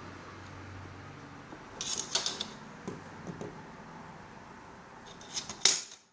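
Sharp clicks and scrapes from laptop parts and tools being handled during disassembly. They come in two clusters, about two seconds in and again near the end, with the loudest click just before the sound drops away, over a steady low hiss.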